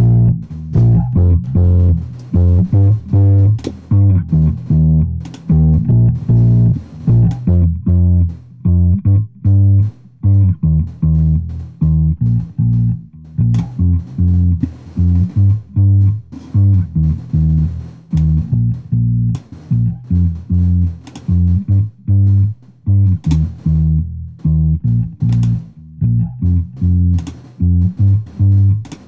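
Electric bass track playing back a rhythmic line of short plucked notes, run through a PuigTec EQP-1A (Pultec-style) equalizer plug-in with its lows boosted at 100 Hz for a fuller, heavier low end.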